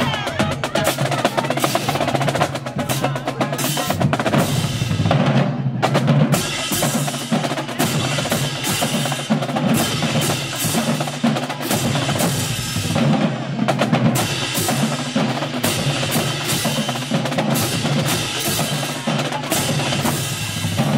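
Marching band drumline playing a cadence: snare drums rolling and striking with bass drums underneath and cymbal crashes close by.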